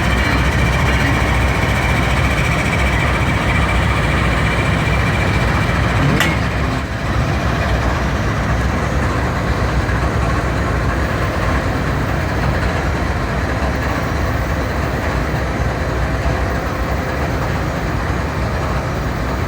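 Norfolk Southern diesel-electric locomotives, four-axle EMD GP-series 'Geeps' among them, running past under power with a steady heavy engine drone. A single sharp click comes about six seconds in, and the sound eases slightly just after.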